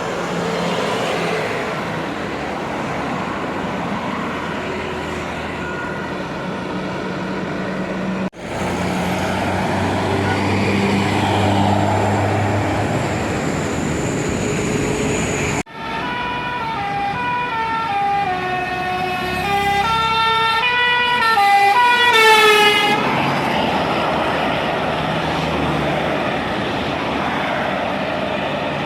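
A bus's telolet multi-tone musical horn plays a stepped, tune-like melody for about seven seconds midway through. Around it are the running engines and road noise of passing buses, in several short clips.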